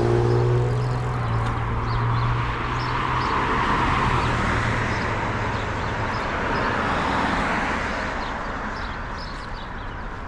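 Street traffic: a vehicle's engine rises in pitch as it pulls away at the start, then road noise swells to a peak about four seconds in and slowly fades as it passes.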